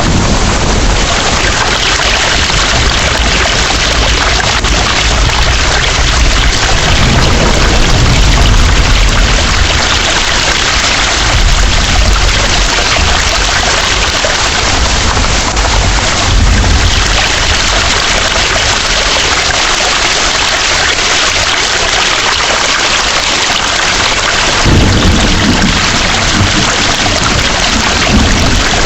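Heavy rain pouring steadily, with a few rolls of low thunder rumbling underneath it, one starting a little before the end.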